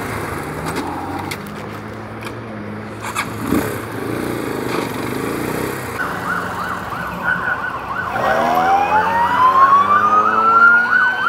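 An engine runs steadily. About six seconds in, an emergency-vehicle siren starts a fast yelp. About two seconds later a second siren's wail rises in pitch over it, and the sirens grow louder toward the end.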